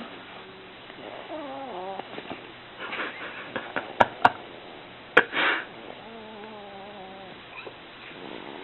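Three-month-old baby growling in her sleep: two drawn-out, wavering, throaty sounds, one early and one in the second half. Between them come a few sharp clicks and a short rush of noise.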